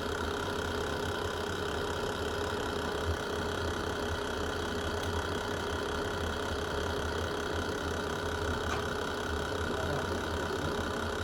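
Fireplace fire burning with a steady low rumble and a faint pop about three seconds in.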